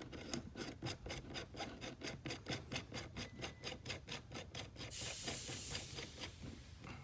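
Faint metal-on-metal rubbing and ticking from a 1/2"-20 jam nut being spun by hand onto the threaded sleeve of an FX STX barrel liner, a quick even run of small ticks, several a second. There is a brief scraping hiss about five seconds in.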